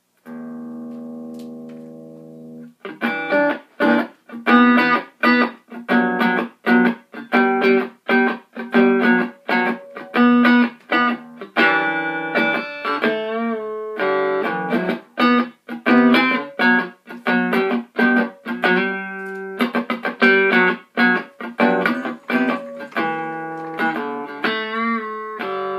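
Electric guitar played through an Orange Micro Terror amp head into its two stacked PPC108 cabinets with their stock speakers: one chord held and let ring, then a steady rhythm of short, choppy chords.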